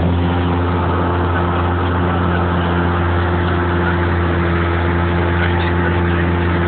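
Snowplow vehicle's engine running steadily under load, a low drone, with the rushing hiss of snow being pushed and thrown off the plow blade.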